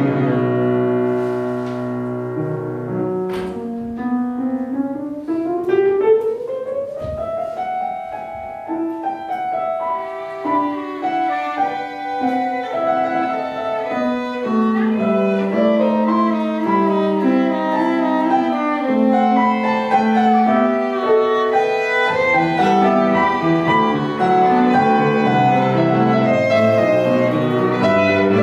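Violin and grand piano playing a classical piece together. A few seconds in, a long rising line climbs upward, and busier, faster-moving notes follow.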